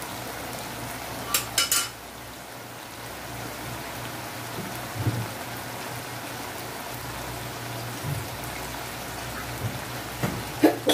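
Fried tofu and long beans simmering in sauce in a frying pan, a steady sizzling hiss. A few sharp clicks come about a second and a half in and again near the end.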